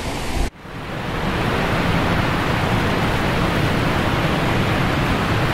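Steady rush of a small waterfall and stream tumbling over rocks. The sound cuts out for a moment about half a second in and fades back up.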